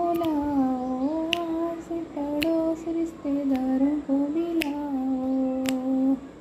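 A woman singing a devotional bhajan, holding long drawn-out notes with no clear words that slide between pitches. Sharp taps keep time about once a second.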